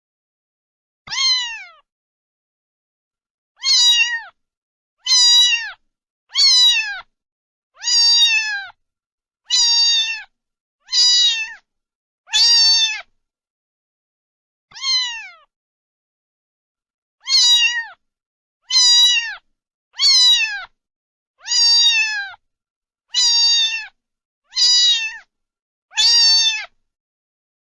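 A domestic cat meowing over and over: about sixteen short, loud meows, each dropping in pitch at the end, spaced roughly a second or so apart with brief longer pauses between some of them.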